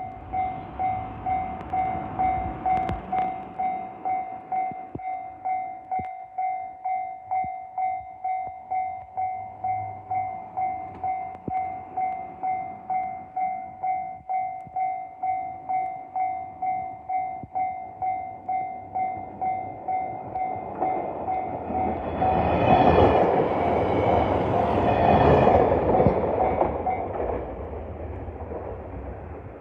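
A level crossing's warning bell dings steadily, about twice a second. About 22 seconds in, a JR Kyushu YC1 series diesel-electric hybrid railcar passes over the crossing in a loud rush of engine and wheel noise. The bell stops a few seconds later and the train fades away.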